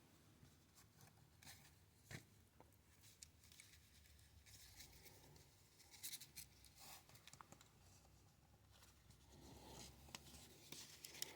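Near silence, broken by faint scattered clicks and soft rustles of trading cards being handled and laid out.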